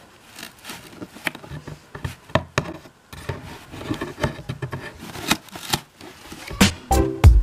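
Scissors cutting corrugated cardboard: short, irregular snips and crunches as the blades bite through, with a few louder handling knocks near the end.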